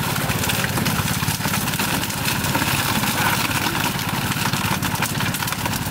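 A small engine running steadily at idle, with a fast, even beat.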